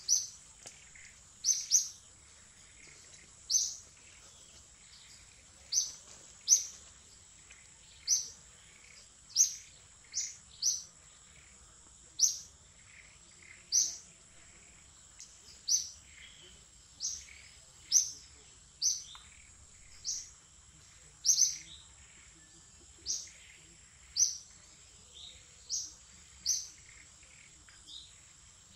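A bird calling with short, sharp, high chirps, repeated about once every second or so, over a faint steady high insect drone.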